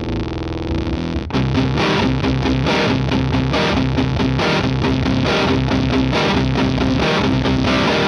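Electric guitar played through an EarthQuaker Devices Bit Commander octave-fuzz synth pedal into a Vox AC30 valve amp: a sustained fuzzy note, then, after a sudden stop about a second in, a fast run of picked notes.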